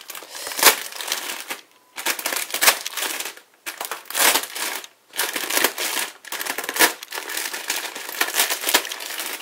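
A block of dry instant ramen noodles being crushed and broken up by hand inside its sealed plastic wrapper, crunching and crinkling in several bursts with short pauses between.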